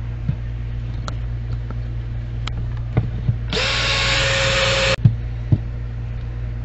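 Ridgid cordless drill running in one burst of about a second and a half, about halfway through, driving a screw into a flat metal corner brace on a wooden frame. A few light knocks and a steady low hum sit underneath.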